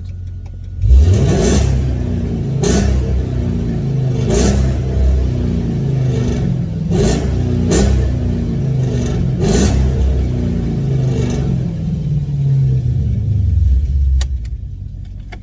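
2013 Dodge Durango R/T's 5.7-litre Hemi V8 accelerating hard through OBX long-tube headers, an X-pipe and Borla Pro XS mufflers, heard through the open rear hatch inside a tunnel. It opens up suddenly about a second in, rising in pitch, then runs loud with a few sharp cracks before easing off near the end.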